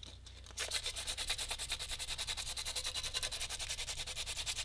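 Coarse sandpaper rubbed quickly back and forth on a PVC pipe, roughening the surface before adhesive is applied. The sound is a fast, even rasping that starts about half a second in and stops near the end.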